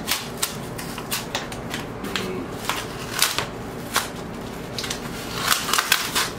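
Cardboard mailer being torn open by hand: a run of irregular crackling rips as the cardboard strip is pulled away, with louder tears about three seconds in and again near the end.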